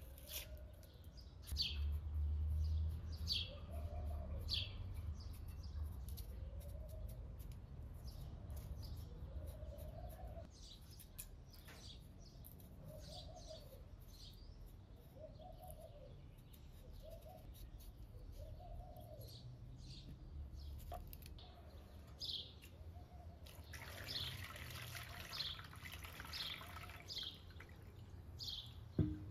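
Birds calling repeatedly in the background: short high chirps every second or so and a lower, rounded call repeating at a steady pace. A low rumble is loudest during the first few seconds. Near the end, water is poured from a metal jug over peeled potatoes in a plastic colander, splashing steadily.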